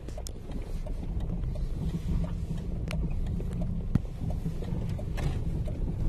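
Steady low rumble of a vehicle on the move, with a few short sharp clicks or knocks, the sharpest about three and four seconds in.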